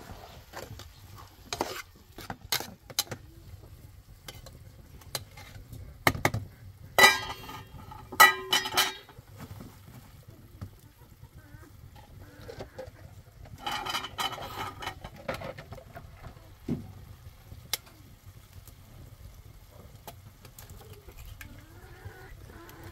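A metal spoon stirring chopped tomatoes in a frying pan over a wood fire, with scattered taps and scrapes on the pan. Twice, about a third of the way in, louder ringing metal clanks of utensils against the pan.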